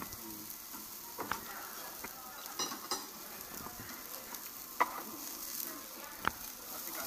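Meat sizzling on a tabletop barbecue grill as its fat drips and flares in the fire, with a few sharp clicks of tongs and chopsticks against the grill grate.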